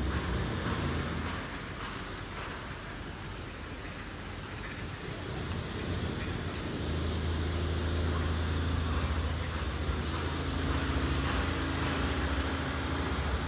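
Town ambience dominated by the low hum of a motor vehicle engine nearby. The hum fades after the first second, then swells again and holds through the second half.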